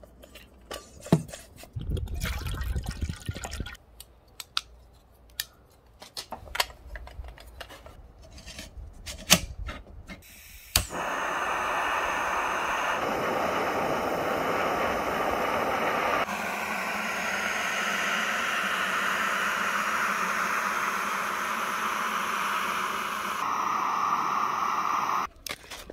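Clicks and knocks of a blue integrated canister gas stove being handled and put together, then a sharp click a little before halfway as it is lit, followed by the gas burner's steady hiss, which cuts off abruptly near the end.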